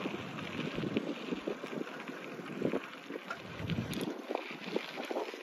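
Wind buffeting the microphone of a camera carried on a moving bicycle, coming in irregular low gusts over a steady hiss.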